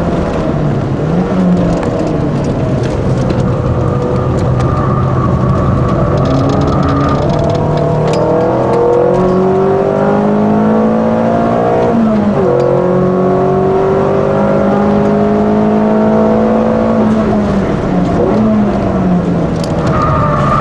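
Peugeot 206 RC's 2.0-litre four-cylinder engine at full load on track, heard from inside the cabin. The revs climb, drop sharply at a gear change about halfway, climb again, then fall near the end as the car brakes for a corner.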